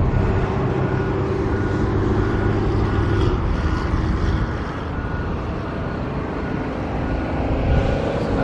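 A motor vehicle's engine runs steadily under road traffic noise; its hum eases off about three seconds in. A faint beeping repeats about every two-thirds of a second at the start.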